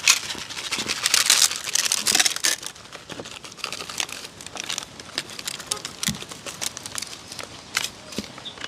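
A packet crinkling and being torn open: dense crackling for the first couple of seconds, then scattered lighter crinkles.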